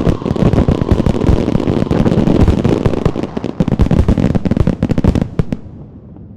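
Fireworks display: a dense barrage of rapid bangs and crackles, with heavy booms underneath, that stops abruptly about five and a half seconds in, leaving only a faint low rumble.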